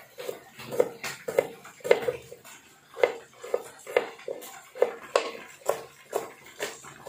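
Kitchen knife slicing shallots on a plastic cutting board set on a stone mortar: an uneven run of chopping taps, about two to three a second, each a short ringing knock.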